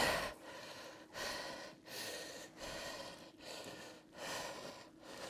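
A man breathing hard, with quick, even breaths about every 0.7 seconds.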